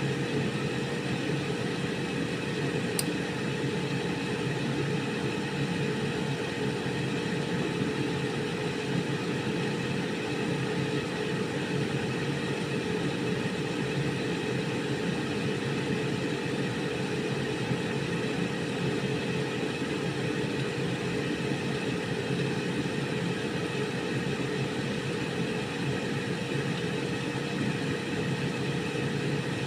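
Air fryer running: a steady fan whir with an even hum and a constant tone, unchanging throughout, with one faint tick about three seconds in.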